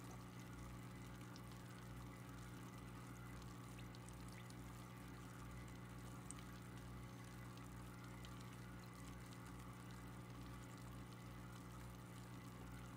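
Faint, steady hum from running aquarium equipment over a soft hiss of moving water.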